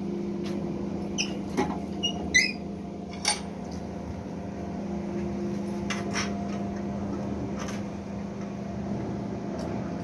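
Scattered light metallic clicks, knocks and a few short squeaks from handling metal parts and tools, over a steady low hum.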